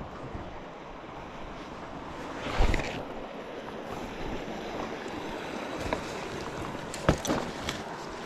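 Steady rushing of the South Platte River's current, with a few thumps: a loud one about two and a half seconds in and another near the end.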